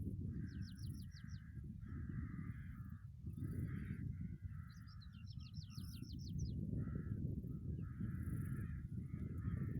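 Wind buffeting the microphone, with birds calling over it: repeated harsh, crow-like calls and two quick runs of high chirps, about half a second in and again about five seconds in.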